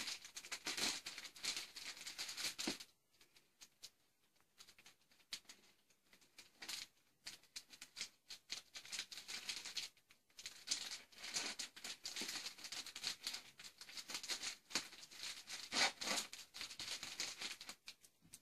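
Scissors snipping open a plastic postal mailer bag, with the plastic rustling and crinkling as it is handled and torn open. The sounds come in irregular clusters, with a quieter pause of a few seconds about three seconds in.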